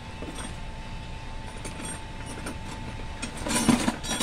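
Metal tools and brake parts clinking and rattling during work on a drum-brake wheel hub, a cluster of sharp clinks near the end over a faint steady tone.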